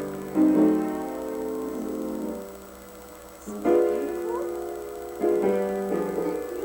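Piano being played: full chords struck a few times, each ringing out and fading slowly before the next.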